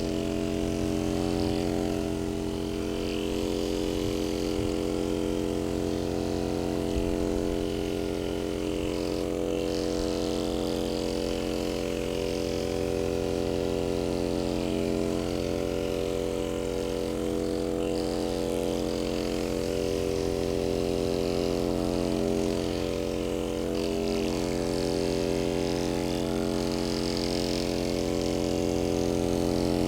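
A small electric motor running with a steady drone, wavering slightly now and then.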